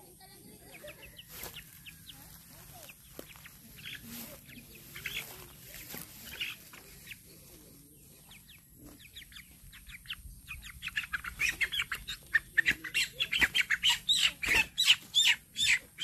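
Young chicken caught in a bamboo snare squawking in distress: a rapid run of loud, sharp squawks starting about two-thirds of the way in. Before that, faint chirps and rustling as the chickens peck in the grass.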